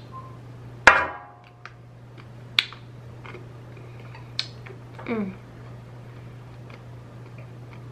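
Metal spoon clinking against the bowl while eating ice cream: one loud ringing clink about a second in, then a few light clicks and taps. A brief falling hum around the middle, and a steady low electrical hum underneath.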